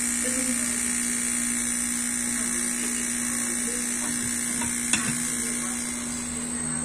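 Steady hum and hiss from an LCD bubble-remover (OCA autoclave) machine running, with a single sharp click about five seconds in.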